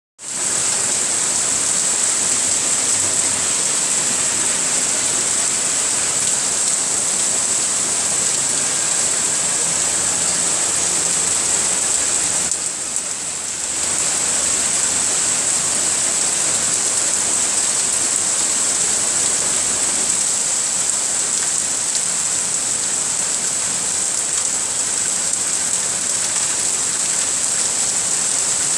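Heavy rain pouring down in a steady, dense hiss that dips briefly about halfway through.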